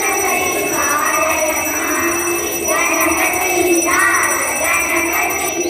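Hindu devotional singing, with voices carrying a wavering melody.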